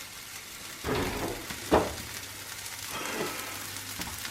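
Stir-fried vegetable filling sizzling in a frying pan, with a utensil scraping through it about a second in and a sharper knock against the pan just after.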